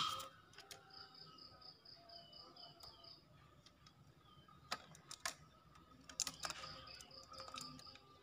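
A few faint sharp clicks and taps in the second half from a green junglefowl moving about its rattan cage. A faint trill of rapid high notes, about five a second, sounds twice in the background.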